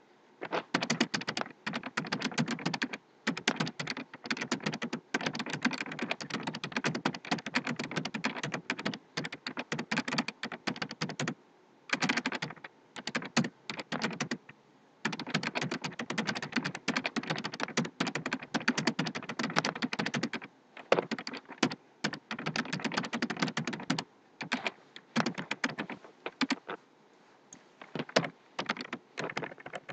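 Fast typing on a computer keyboard, in long runs of keystrokes broken by short pauses.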